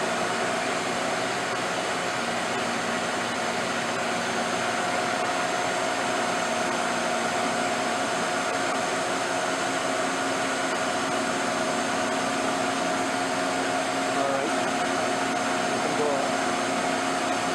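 Racer HB-110CB CNC horizontal boring mill running with its spindle turning at a set speed: a steady whir with a held tone over it.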